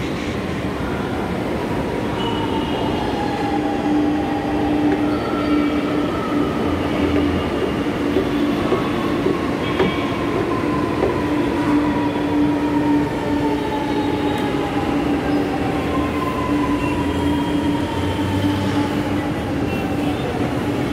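Electric metro train whining as it slows, several tones falling slowly in pitch over a steady hum and a constant rumble.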